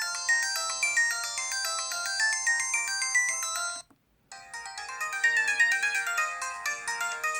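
LG-SH810 (CYON) mobile phone ringtones: one bright electronic melody plays and cuts off about four seconds in, and after a short gap the next ringtone's melody begins.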